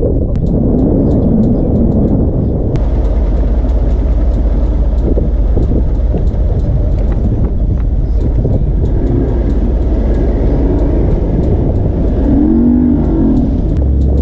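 Loud, steady low rumble of a moving vehicle, with an abrupt shift in the noise about three seconds in.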